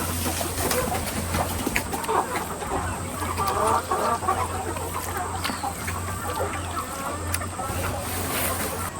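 A flock of chickens clucking and calling, many birds overlapping, with scattered short clicks, over a steady low hum.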